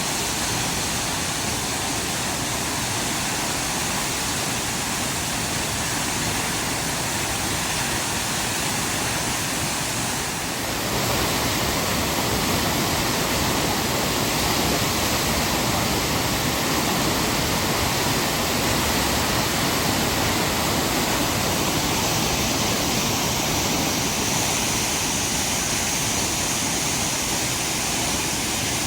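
Waterfall on a river, a steady rush of falling water that gets louder and fuller about ten seconds in.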